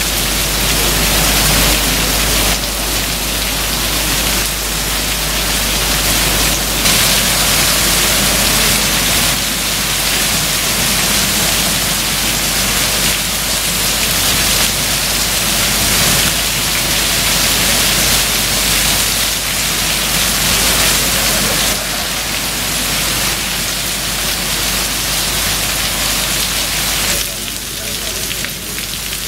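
Heavy rain pouring steadily: a dense, loud hiss of rain on leaves, roofs and pavement that shifts in tone a few times and eases a little near the end.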